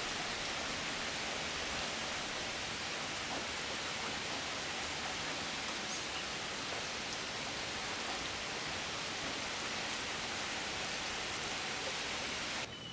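Steady hiss of heavy rain falling on garden leaves. It drops abruptly to a softer level just before the end.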